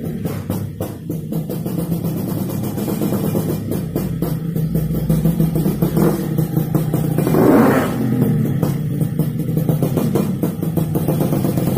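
Background music with a drum beat and guitar.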